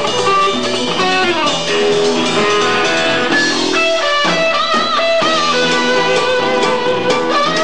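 Live rock-blues band playing, with an electric guitar carrying sustained, bent notes over the rhythm.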